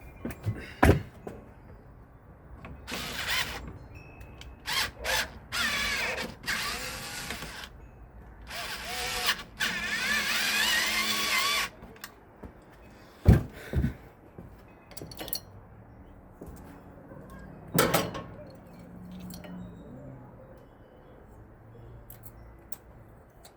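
A power drill-driver running in several short spurts as it tightens screws on the fan's mounting, its motor pitch wavering under load; the longest run lasts about three seconds. A few sharp knocks come before and after the runs.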